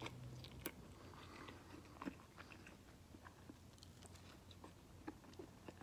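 Faint sounds of a person biting into a slice of pizza and chewing, with scattered soft mouth clicks.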